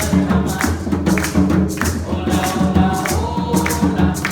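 Music with a steady beat: a song with singing over percussion, with shaken or struck strokes about twice a second.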